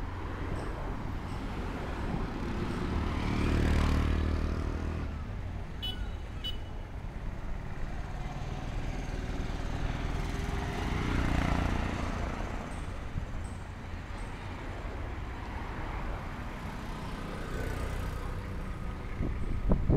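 Street traffic: a steady engine rumble of passing vehicles, swelling as one goes by about four seconds in and another around eleven seconds. Two short high beeps sound about six seconds in.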